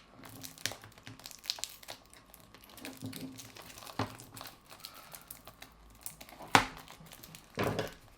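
Plastic wrapping film being peeled and crinkled off a Blu-ray case: scattered crackles and small clicks, with two sharper, louder crackles near the end.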